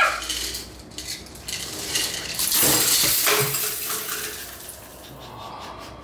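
Clinking and rattling of the bean hopper's lid and stainless steel container as they are lifted off and handled on a DeLonghi La Specialista Prestigio espresso machine, with the loudest clatter about two and a half to four seconds in.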